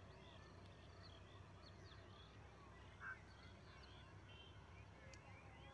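Near silence with faint birds chirping in the background, many small chirps, and one short louder call about three seconds in, over a low steady hum.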